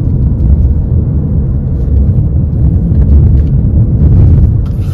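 Car driving on a highway: a loud, steady low rumble of road and engine noise.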